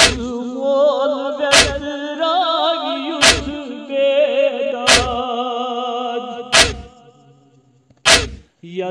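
A man singing a long, wavering noha lament note, with sharp chest-beating slaps (matam) keeping a slow beat about every second and a half, six in all. The voice drops away about seven seconds in, leaving a near-quiet gap before the last slap.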